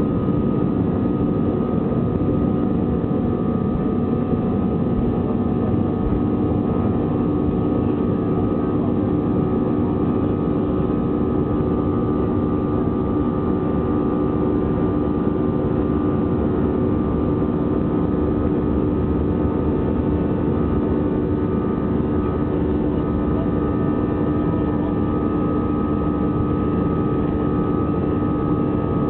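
Airbus A320's jet engines running steadily, heard inside the passenger cabin as the airliner rolls along the runway: a dense rumble with a steady whine and hum that hold their pitch.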